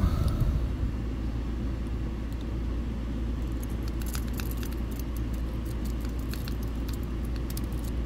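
A metal rake pick is worked in and out of a brass wafer-lock cylinder under a pry-bar tension tool, making faint irregular clicks and scrapes as the wafers are raked. A steady low rumble runs underneath.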